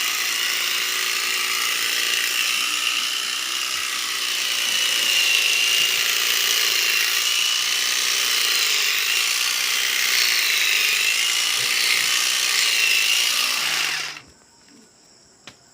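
Electric sheep-shearing clippers running steadily while cutting a sheep's fleece, a high buzzing whine that wavers slightly in pitch as the cutter works through the wool. The buzzing stops abruptly near the end.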